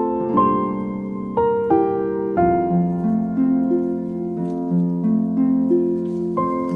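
Instrumental background music: a gentle melody of plucked, harp-like notes, each ringing and fading as the next begins.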